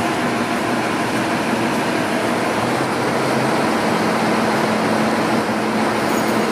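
A 2019 Ferrara Igniter fire engine's diesel engine running steadily in the station bay, a dense, even rumble and hiss as it readies to respond.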